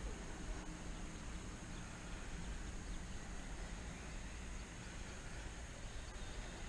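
Wind buffeting the microphone: a steady low rumble with a faint hiss above it, and no distinct event standing out.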